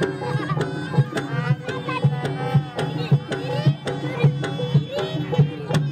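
Live Javanese folk-performance music: kendang hand drums struck in a repeated rhythm under a high, wavering reed-pipe melody and a steady low drone.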